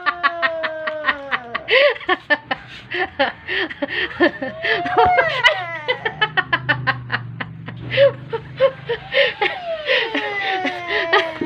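Sustained laughter in rapid pulses, about five a second, with a child's drawn-out falling wails at the start and again near the end.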